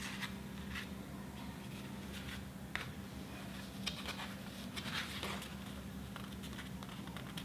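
Soft rustling and light scraping of paper and thread as hands tie a knot in red string on a small stitched paper booklet: a scattering of short, crisp sounds, the sharpest about three and four seconds in, over a steady low hum.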